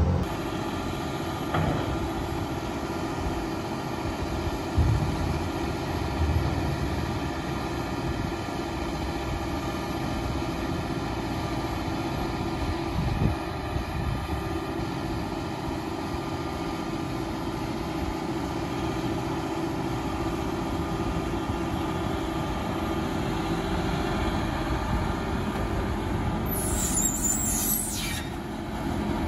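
Wheel loader's diesel engine running steadily while it works. Near the end there is a brief high-pitched hiss.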